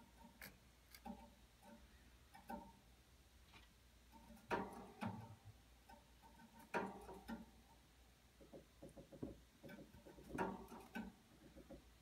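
Faint, irregular light taps and clicks, with three louder knocks that each ring briefly.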